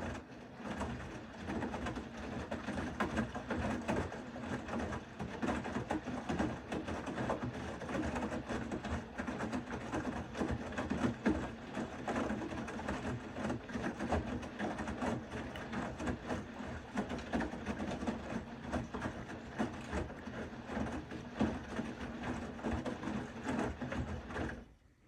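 Bosch WAK20260TR front-loading washing machine running on its short cotton programme: a steady motor hum with many rattling clicks as the drum turns. It starts abruptly and stops abruptly near the end.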